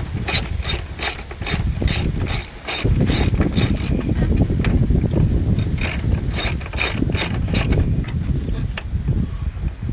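Socket ratchet clicking in quick, even runs of about four clicks a second as a 12 mm socket on a long extension turns the battery tie-down nut, with a pause in the middle and a low rumble underneath.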